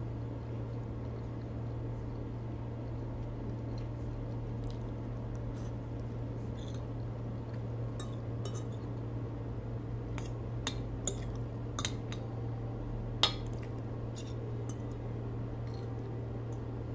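Metal fork and spoon clinking and scraping against a dinner plate while eating spaghetti, with a handful of sharp clinks in the second half, the loudest about three quarters of the way through. A steady low hum runs underneath.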